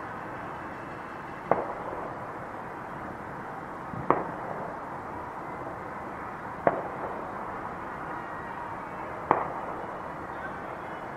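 New Year's fireworks going off: four single sharp bangs, evenly spaced about two and a half seconds apart, over a steady background hiss.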